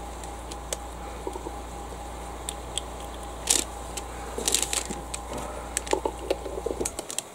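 Scattered light clicks and taps of a plastic bottle cap, bottle and small tools being handled on a workbench, over a steady low hum that cuts off near the end.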